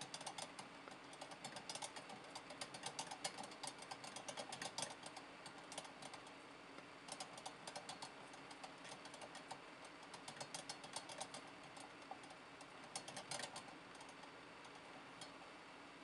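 Hamster running in a crooked wire-mesh exercise wheel, the wheel rattling and clicking rapidly in long runs. The clicking pauses briefly about six seconds in, then stops after about twelve seconds, with a short run after that and one last click near the end.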